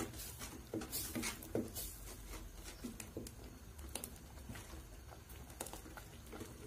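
Wooden spoon stirring thick milky sago payasam in a steel pot, giving soft, irregular taps and scrapes against the pot.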